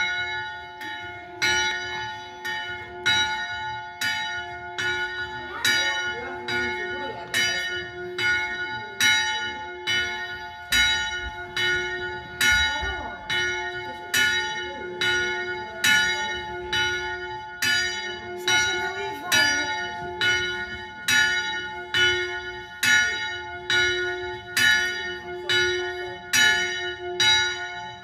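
Two electrically swung church bells ringing a steady peal, striking about one and a half times a second, each stroke ringing on over a sustained hum around a slightly flat G-flat.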